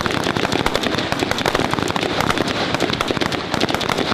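Rifle fire from several shooters at once: sharp shots, many a second, overlapping without a break.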